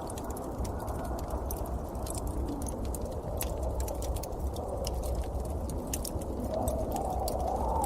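Steady blizzard wind rushing, with a low rumble, swelling a little near the end. Scattered sharp crackling ticks run through it.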